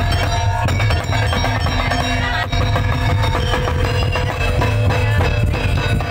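Loud parade music with a steady drum beat and heavy bass.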